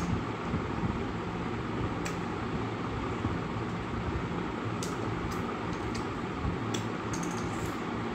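Steady mechanical hum of room noise, with a few faint sharp clicks about two seconds in and again in the second half.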